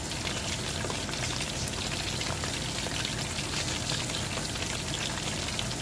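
Upo and misua soup boiling hard in a frying pan, a steady bubbling crackle of many small pops.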